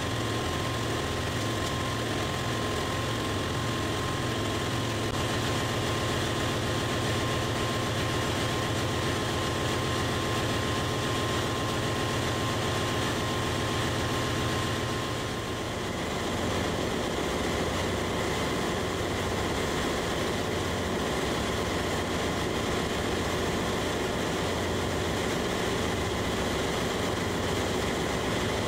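Steady drone of a ship's engine-room machinery running. A high steady whine stops about halfway through, and the drone changes slightly at that point.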